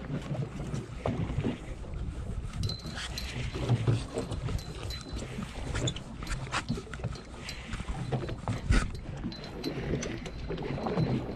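Water lapping against a small fishing boat's hull with wind on the microphone, and scattered sharp clicks and knocks from handling a baitcasting rod and reel close by.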